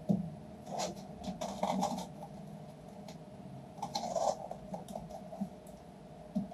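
Foil-faced foam soundproofing insulation being handled and pressed down on an aircraft cabin floor: scattered rustling, crinkling and scraping, with a sharp knock right at the start.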